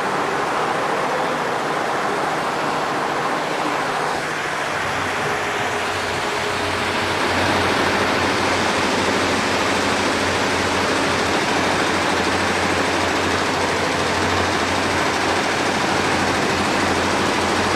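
A 2005 Richpeace 15-head embroidery machine running, giving a dense, steady, rapid clatter of needles stitching. A low hum joins in about four and a half seconds in.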